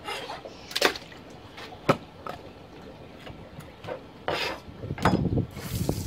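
Knife and hand handling sounds on a plastic cutting board while cleaning a fish: a few sharp knocks and scrapes, then heavier thuds about 5 seconds in. Just before the end, the hiss of water from a hose spray nozzle starts up.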